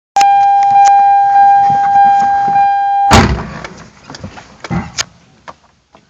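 A car's dashboard warning buzzer sounds one steady tone for about three seconds and cuts off with a loud thump as a car door shuts, followed by a few light clicks and knocks.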